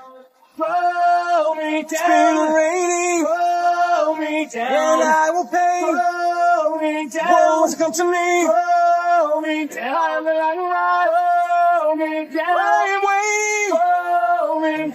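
A man's rock lead vocal, isolated from the band, singing without instruments in held and gliding phrases. There is a brief pause right at the start.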